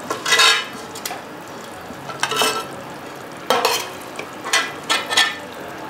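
Steel slotted ladle scraping and clinking against the inside of a metal pot while scooping out chicken gravy: several separate scoops about a second apart.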